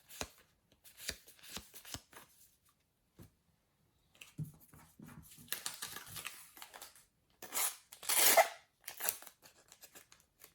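Paper stickers and their packet being handled: short rustles and slides in separate bursts as the stickers are flipped through. The loudest is a rasping rustle of about a second near the end.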